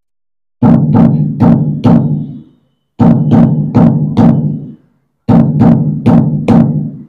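Puneri dhol pattern played with the dhol sound of a Roland HandSonic electronic hand-percussion pad: groups of four deep drum strokes, three groups in all, each followed by a short pause.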